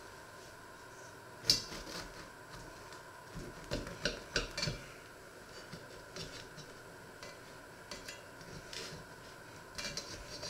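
Metal knife blade scraping and clinking against the inside of a cast-iron pot as it is worked around the edge of a baked loaf to loosen it, with one sharp clink about one and a half seconds in, a run of clinks and knocks around four seconds, and more near the end.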